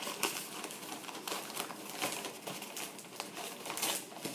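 Packing material crinkling and rustling in irregular crackles and small clicks as a shipped orchid is unwrapped by hand.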